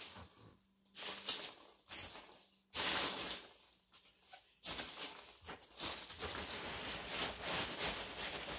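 Hands rummaging through loose polystyrene packing peanuts in a cardboard box, the foam pieces rustling against each other. The rustling comes in short bursts at first, then runs continuously from about halfway through.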